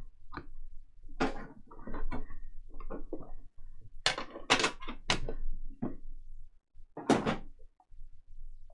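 A black metal trading-card tin and small cardboard card boxes being handled: the lid comes off and the boxes are taken out and set down, a string of scrapes and knocks with several in quick succession about four to five seconds in and another about seven seconds in.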